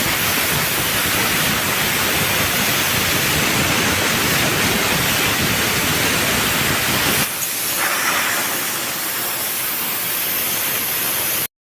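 Parkside plasma cutter running, a loud steady hiss of air and arc. About seven seconds in the deeper part of the sound drops away and a thinner hiss carries on until it cuts off abruptly near the end.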